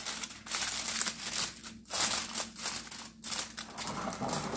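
Aluminium foil crinkling in irregular bursts as hands press and crimp it down around the rim of a baking dish.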